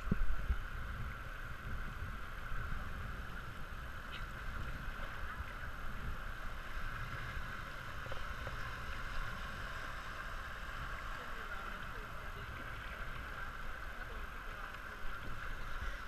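Shallow river water rushing steadily over riffles around an inflatable raft, with a low rumble underneath that is strongest in the first second.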